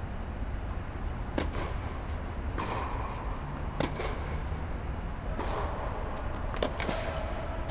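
A tennis rally: rackets striking the ball and the ball bouncing on a hard court, a string of sharp pops about a second apart, over a steady low hum.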